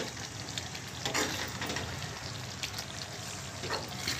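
A spatula stirring thick chicken gravy in a kadai, with scraping strokes against the pan over a steady sizzle.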